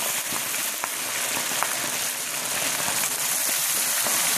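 Chicken drumsticks deep-frying in a pot of hot oil: a steady sizzle from the hard-bubbling oil around the freshly added raw chicken, with a few faint crackles.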